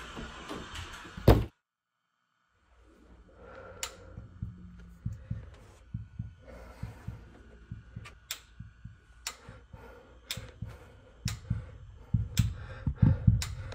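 A loud thud about a second in, then a second of dead silence, then a run of dull thumps and knocks with sharp clicks about once a second, getting louder near the end.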